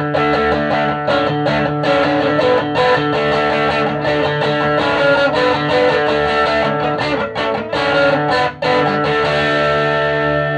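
Electric guitar played through a 1965 WEM Control ER15 valve amplifier with push-pull EL84 output valves, strummed chords with short breaks between them. About nine seconds in, one chord is left to ring out and slowly fade.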